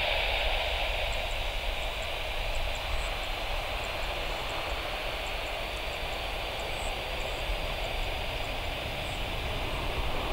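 Airbus A320-214's CFM56 turbofan engines at takeoff thrust, heard from behind as the jet climbs away: a steady roar that slowly fades.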